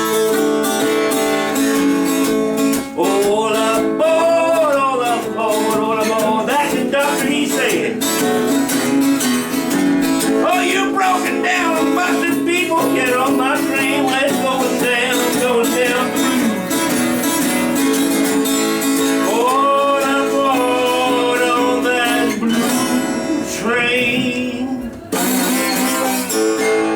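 Acoustic guitar playing a blues instrumental break, strummed chords under a bending, wavering lead melody.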